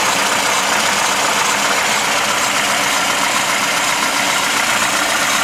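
VAZ Classic engine idling with a steady scraping, grinding noise coming from the alternator, which the owner puts down to a failing alternator bearing or something else inside it.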